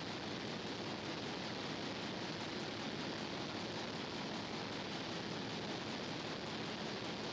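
Steady, even background noise with no distinct tones, knocks or changes.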